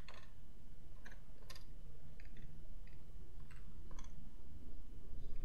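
Computer keyboard keys being pressed one at a time while a filename is typed, giving about ten separate, unevenly spaced clicks. A steady low hum runs underneath.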